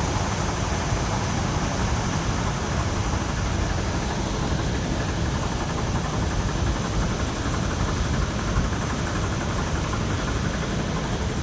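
A jeep running on the road, with a steady engine and road rumble and no clear separate events.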